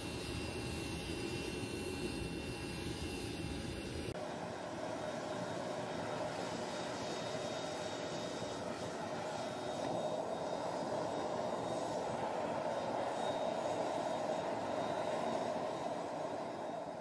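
Steady rushing roar of a small forced-air crucible furnace, the air blast and fire running hard; the tone shifts about four seconds in.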